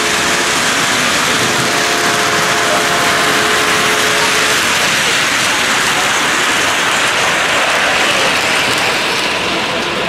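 Model trains running close by on metal track: a steady clatter and rumble of many wheels rolling over the rails. A few faint held tones fade out after about four seconds.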